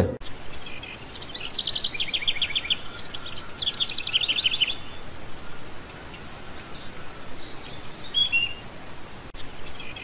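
Small cage birds chirping in quick trills of rapid high notes. The trills come in runs of about a second each in the first half, with fainter, scattered calls later on.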